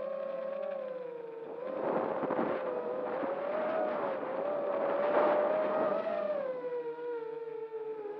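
FPV quadcopter's brushless motors whining, the pitch wavering and sliding with the throttle and dropping a little near the end. Two surges of rushing noise come over the whine, about two seconds in and again about five seconds in.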